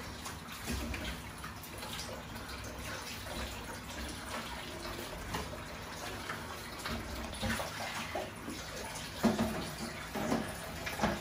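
Running water splashing into a sink or basin, a steady wash of noise with small knocks and clatters, two of them louder near the end.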